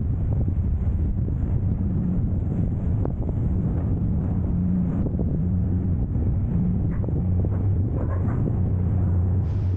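Wind buffeting the microphone of a camera mounted outside a vehicle, over a steady low engine rumble, as the vehicle drives slowly onto a car ferry.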